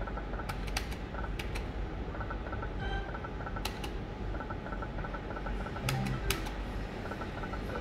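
Electronic video slot machine spinning its reels: groups of short, rapid electronic beeps repeating over and over, with several sharp clicks, over a steady low hum.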